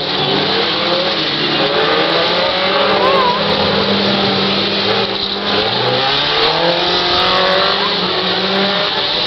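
Several stock car engines revving together as the cars race on a dirt track, their pitches rising and falling as drivers work the throttle.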